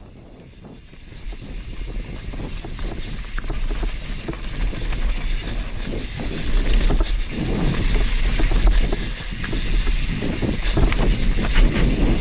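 Wind buffeting the microphone of a helmet-mounted action camera, with the rumble of mountain-bike tyres on a dirt trail and frequent knocks from bumps as the bike descends. It grows louder over the first few seconds as speed builds.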